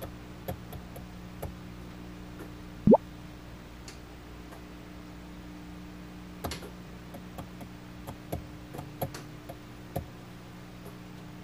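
Air-bubble clock in glycerin: a single loud rising bloop of an air bubble about three seconds in, then a scattered run of small ticks from about six to ten seconds as rows of bubbles are released to draw the digits. A steady low hum runs underneath.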